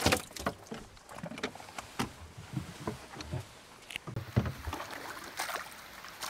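Irregular light knocks and short dull thumps on the floor of a small boat, with scattered sharp clicks.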